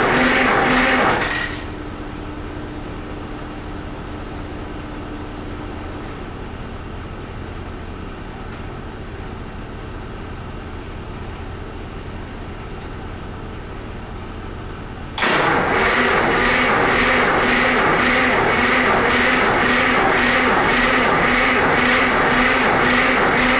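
Detroit Diesel 1-71 single-cylinder two-stroke diesel running after a cold start without ether. It is loud and pulsing, drops to a much quieter level about a second in, then comes back abruptly at full level about 15 seconds in.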